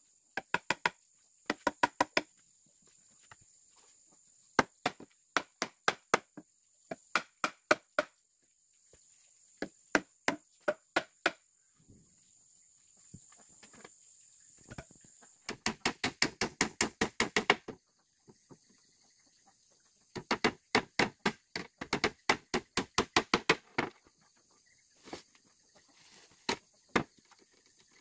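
A hand tool striking wood over and over: sharp knocks in short runs of a few blows with pauses between, and two longer fast runs of many blows about halfway through and again a little later. A steady high insect chirr, like crickets, runs underneath.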